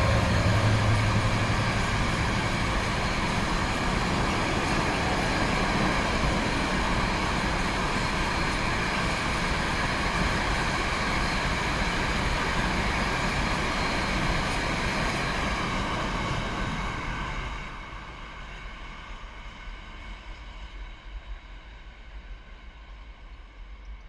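Freight train passing through a station: a low locomotive hum loudest at the start, then the steady rumble and clatter of the wagons rolling by. About 17 seconds in the sound drops sharply as the end of the train goes past, leaving a fainter rumble fading away.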